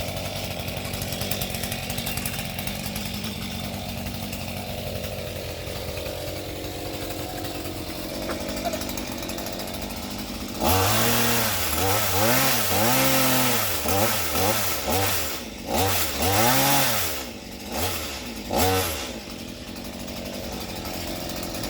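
Two-stroke chainsaw idling, then from about ten seconds in revved hard up and down in about seven surges, each rising and falling in pitch, before dropping back to idle near the end.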